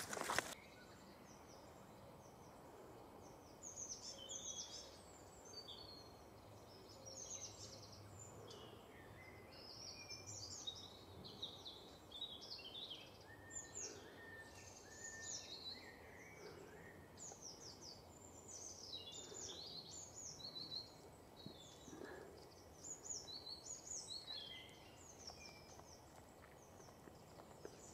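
Several woodland songbirds singing faintly, a steady scatter of short high chirps and trills over a soft background hiss.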